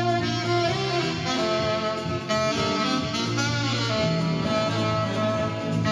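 Alto saxophone playing a jazzy melody of held notes over an accompaniment with a bass line.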